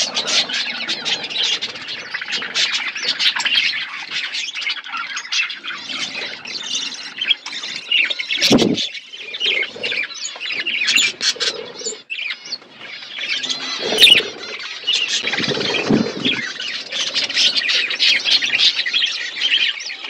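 A flock of budgerigars chattering and chirping continuously in a dense, overlapping stream of high warbling calls. A brief low thump comes about eight seconds in and a short sharp knock about fourteen seconds in.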